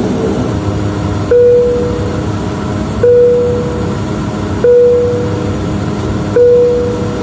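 Steady engine and propeller drone inside the cabin of a Bombardier DHC-8 Q400 turboprop on the ground, with a short mid-pitched tone sounding four times at even intervals over it.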